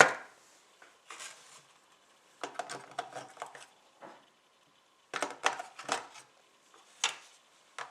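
Batteries being handled and pressed into the plastic battery compartment of a remote control transmitter: clusters of small clicks and rattles, with short pauses between them.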